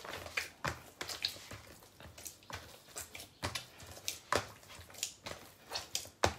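Hands kneading sticky purple ube bread dough in a plastic bowl: irregular soft slaps and squelches of the dough, with light knocks against the bowl, two or three a second.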